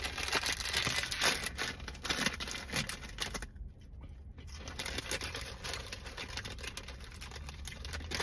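Crinkly plastic snack bag of Doritos Dinamita sticks rustling and crackling as it is handled, with a short lull about three and a half seconds in.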